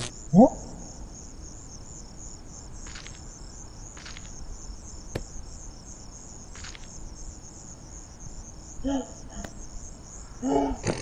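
Crickets chirping in a steady, rapidly pulsing high trill. A short rising glide about half a second in is the loudest sound, and two brief pitched sounds come near the end.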